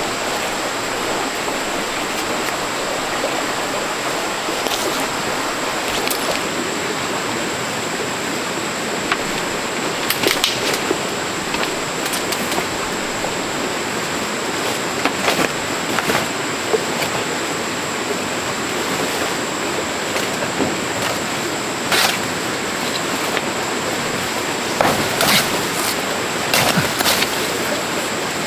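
Steady rush of flowing water, with a few brief knocks scattered through it and a thin, high steady tone above.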